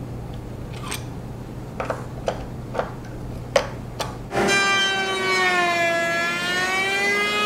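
A few sharp clicks as the router lift's height is adjusted and locked, over a low steady hum. About four and a half seconds in, a router table with a raised-panel bit starts up loud and whines as a panel is fed past the bit. Its pitch dips and rises again as the bit takes a light cleanup pass to remove burn marks.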